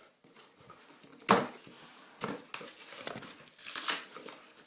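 Parcel packaging being torn open and crinkled by hand, with a sharp tear about a second in, followed by more tearing and rustling.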